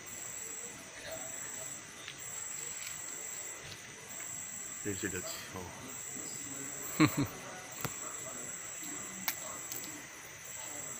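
Crickets trilling high and steadily, in long pulses with short breaks. Brief low voice sounds come about five seconds in and, louder, about seven seconds in.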